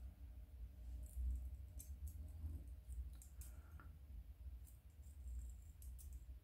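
Faint, irregular clicks and light clinks of a metal wire puzzle's bent steel pieces and small chain being handled and slid against each other, over a low rumble.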